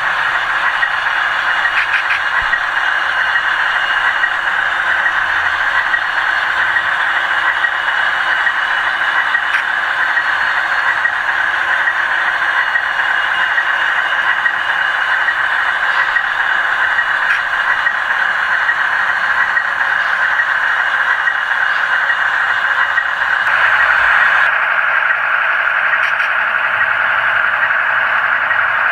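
HO scale model locomotives running along the layout track: a steady whirring rattle of motors and wheels on the rails.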